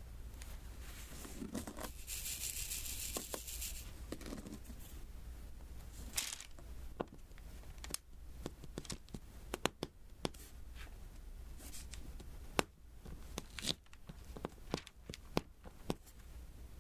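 A papery rasping hiss lasting about two seconds near the start, then a string of small, sharp, irregular taps and clicks as resin diamond-painting beads are tapped onto the sticky canvas.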